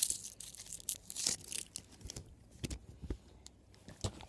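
Plastic sweet wrapper being torn open and crinkled, the rustling dying away after about a second and a half and leaving a few soft clicks.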